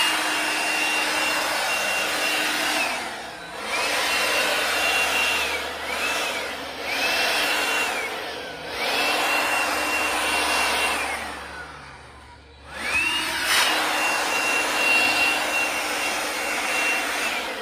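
Hercules 20V cordless compact jobsite blower run in repeated trigger pulls, blowing leaves and dust along a concrete floor. Each of about six bursts is a rush of air with a high motor whine that rises as the motor spins up and slides down as it winds down after the trigger is let go; the last burst is the longest.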